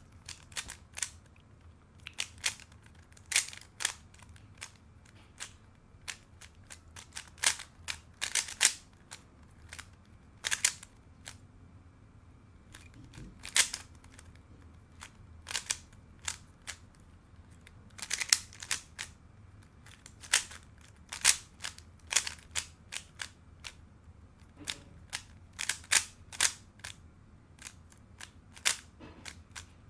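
Moyu RS3M 2020 magnetic 3x3 speed cube being turned fast in a timed solve: rapid, irregular plastic clicks and clacks of the layers turning, in quick clusters broken by short pauses.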